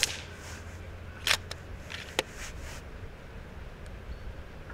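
FX Panthera PCP air rifle being recocked between quick shots: a knock and then a sharp click about a second apart, with fainter ticks around them. The tail of the previous shot's report fades away at the very start.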